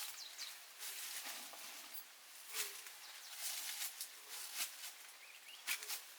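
Rain falling as a steady hiss, with scattered sharp taps and clicks at irregular intervals, loudest a little before the end.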